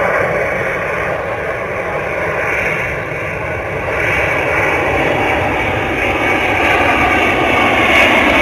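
C-17 Globemaster III's four turbofan engines as it passes low overhead: a steady rushing noise with a high whine that grows louder as the aircraft comes closer.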